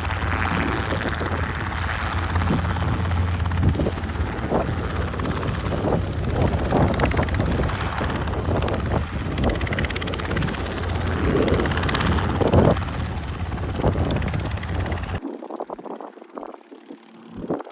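Small helicopter in flight with its doors off: rotor and engine running steadily with wind buffeting the microphone. The sound cuts off suddenly about fifteen seconds in.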